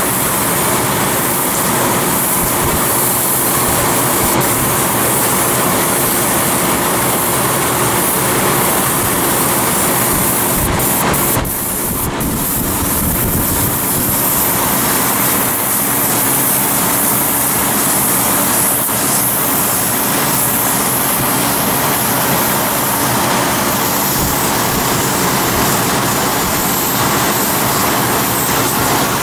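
A steady motor hum with a constant hiss of air, from the air compressor and airbrush in use.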